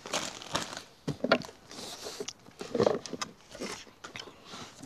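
A cardboard box and its packaging being handled and rummaged through: irregular rustles, scrapes and soft knocks, a little louder about a second in and near the middle.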